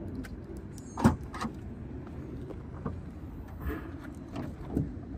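Keys jangling and the trunk lid of a 2002 Chevrolet Impala being handled open: a sharp knock about a second in, then a few softer clicks and clunks.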